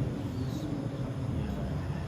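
Quran recitation by a man's voice over the mosque loudspeaker, a softer low stretch between louder chanted phrases, over a steady low hum.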